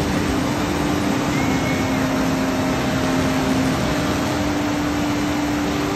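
Deschutes River whitewater rapid rushing: a loud, steady, even wash of churning water.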